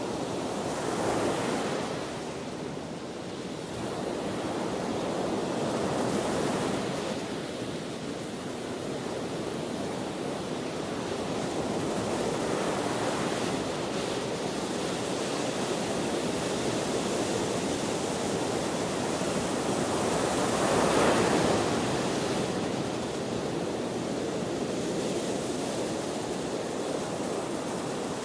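Ocean waves breaking and washing ashore in the wind: a continuous rush that swells with each wave. The biggest swell comes about three-quarters of the way through.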